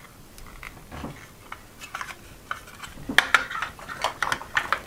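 Hard plastic toy food pieces clicking and clattering as they are handled and pressed together, with a few scattered taps at first and a quick run of small clicks in the second half.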